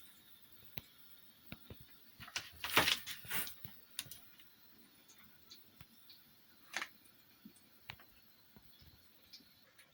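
Scattered light clicks and taps with a short rustle about three seconds in and a sharper click near seven seconds: small handling noises in a small room.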